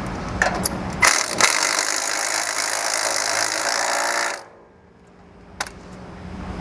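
Cordless impact driver hammering on a bolt in the pump's piston cylinder face for about three seconds, then stopping abruptly. A few light clicks from handling the tool come before it, and one more near the end.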